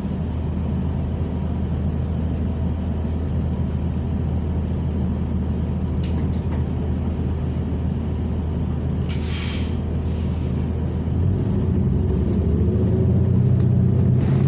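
New Flyer XN40 natural-gas transit bus heard from on board, its engine running with a steady low drone. A short hiss of air comes about nine seconds in. From about eleven seconds the sound grows louder and the engine and drivetrain note rises as the bus accelerates.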